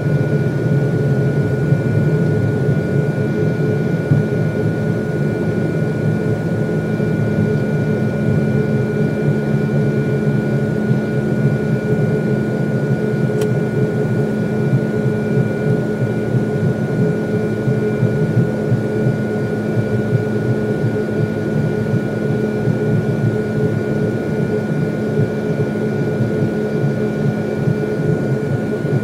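Boeing 777-300 jet engines heard from inside the cabin: a loud, steady rush with a thin, steady whine over it.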